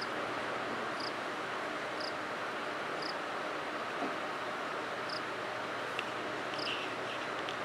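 Steady outdoor background hiss, with a short high chirp repeating about once a second.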